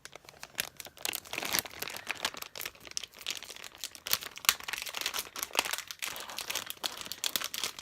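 Crinkling and rustling of a small toy's packaging as it is handled and torn open: a dense run of irregular close-up crackles.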